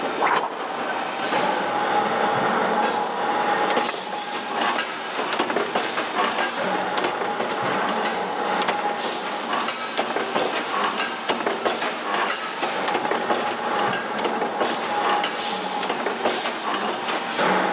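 Sheet-metal press shop noise: machinery running with a steady whine under it, and frequent, irregular metallic clanks and knocks as steel sheets are handled.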